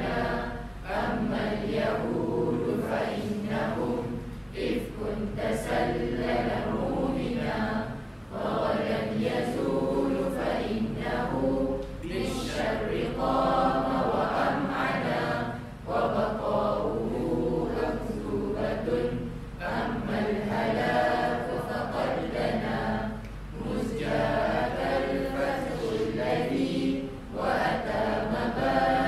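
A group of voices singing an Arabic nasheed together, the melody moving in long sung phrases with short breaths between lines. A low steady hum runs underneath.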